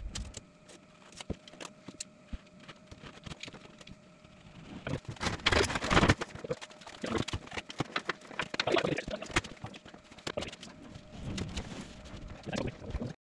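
Irregular knocks, taps and scraping of plasterboard sheets being cut, handled and pushed up against a ceiling, with steps on a scaffold tower platform. Sparse at first, busiest from about halfway through, and it cuts off suddenly just before the end.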